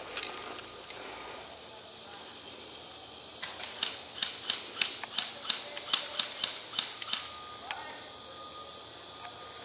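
A steady, high-pitched insect chorus, crickets or similar, with a run of about eleven sharp clicks at roughly three a second in the middle.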